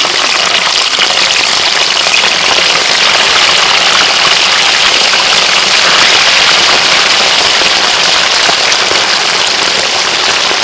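Pieces of fish deep-frying in a wok of hot oil: a loud, steady sizzle with constant fine crackling.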